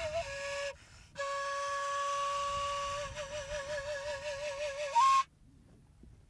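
Solo flute playing a slow melody. After a short phrase and a brief pause about a second in, it holds a long note that turns into a wavering trill, then jumps to a higher note and stops suddenly about five seconds in.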